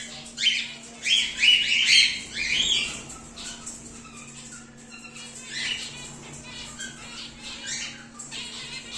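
Cockatiels squawking and chirping: a loud cluster of calls in the first three seconds, then quieter calls now and then. A steady low hum runs underneath.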